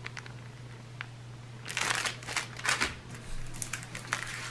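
Plastic packaging crinkling and rustling in bursts as the small Ziploc bags of diamond painting drills and the canvas are handled and set down, starting a little under two seconds in. A low steady hum lies underneath.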